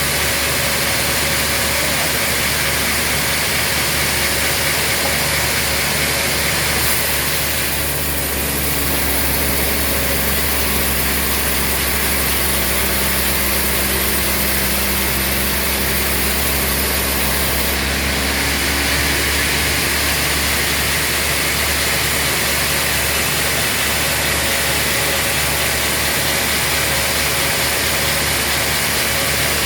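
Sawmill machinery running steadily. A high hiss and a steady hum join in from about seven seconds in and stop at about eighteen seconds.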